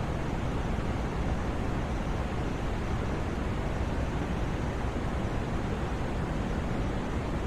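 White noise for sleep: a steady, unchanging hiss, fuller in the low end, with no rhythm or events.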